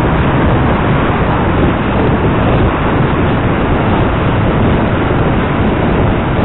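Steady, loud rushing noise from wind and road noise on the microphone of a camera on a moving bicycle, with city traffic mixed in.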